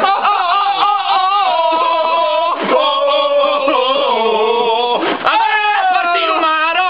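A group of men singing together at full voice, holding long sustained notes, with brief breaks about two and a half and five seconds in.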